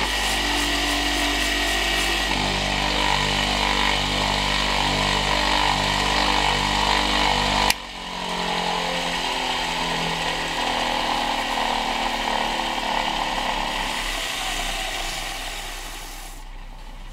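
Homemade mini wood lathe running steadily, its electric motor humming as a spinning wooden blank is sanded with sandpaper held in a cloth. A sharp click about halfway through; after it the running goes on and grows quieter near the end.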